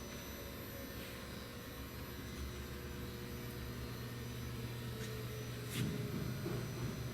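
Steady electrical hum from shop machinery, a little louder in the second half, with one sharp click about six seconds in.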